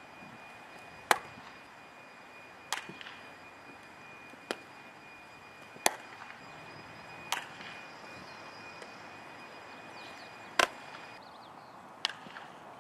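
Sharp smacks of a softball landing in leather fielding gloves during a throwing and catching drill, about seven in all, roughly one every one and a half seconds with a longer gap in the middle.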